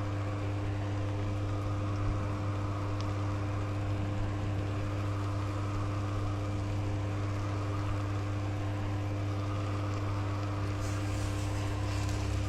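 Steady low hum of a small electric exhaust fan, the camper's range hood, running while the claypot rice cooks, with a faint sizzle underneath.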